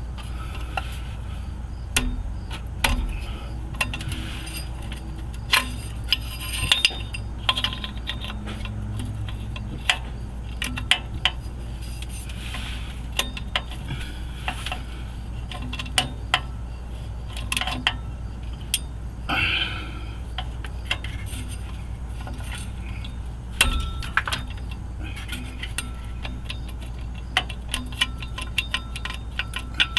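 Hand tools clicking and clinking against metal as the exhaust collector bolts are tightened down on a new gasket: irregular sharp metallic clicks and clinks, some in quick runs, over a steady low hum.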